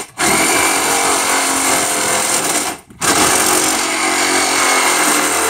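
A power tool running in two long stretches, stopping briefly about three seconds in.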